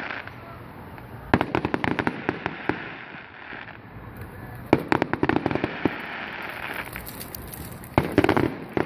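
Aerial fireworks crackling in three bursts of rapid sharp pops: one about a second in, one just before the middle, and a short one near the end.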